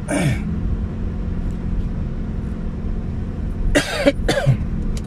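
Steady low hum of a car's engine and tyres heard from inside the cabin while driving. A short vocal sound comes at the start, and about four seconds in a person coughs twice in quick succession.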